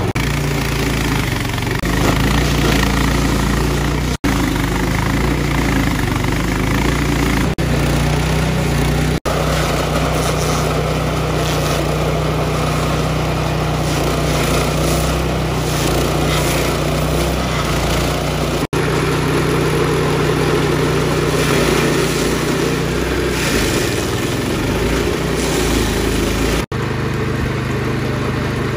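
Gasoline engine of a walk-behind stump grinder running steadily at high speed while its cutter wheel grinds into a tree stump, with a few brief breaks.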